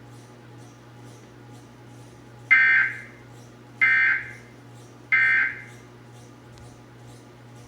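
Emergency Alert System end-of-message data bursts: three short, buzzy digital squawks about a second apart. This is the EOM code that closes the alert after the test message.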